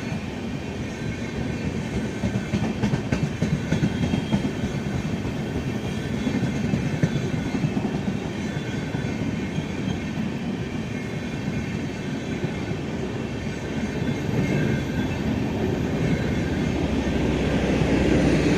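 Express train's passenger coaches rolling past at close range, steel wheels clattering over rail joints in an uneven, continuous rhythm.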